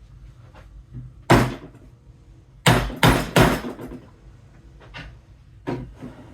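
Mallet striking wooden dowels into the side of an IKEA IVAR shelf: a blow about a second in, then three hard blows in quick succession near the middle, and a lighter knock near the end.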